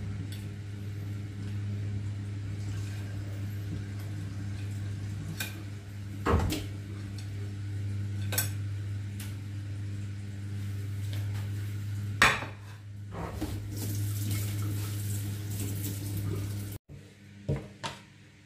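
A plate handled at a stainless-steel kitchen sink, clinking and knocking a few times, sharpest about six and twelve seconds in, over a steady low hum.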